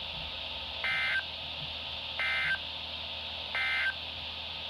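Three short bursts of EAS digital data tones, the end-of-message code that closes an emergency alert, each about a third of a second long and evenly spaced about 1.3 seconds apart, over steady radio hiss.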